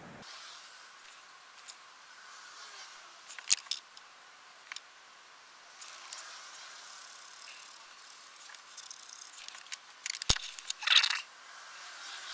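Copic alcohol markers being used and handled on a desk: the faint scratch of a marker nib on Bristol board, broken by a few sharp plastic clicks and brief rattles as markers are uncapped, set down and picked up. The sharpest click comes a little past ten seconds in.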